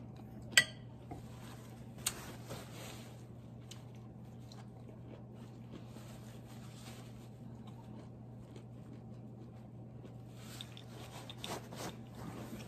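A person eating quietly: soft chewing, with a sharp clink of a fork on the plate about half a second in and a lighter clink about two seconds in. A napkin rustles near the end, over a steady low hum.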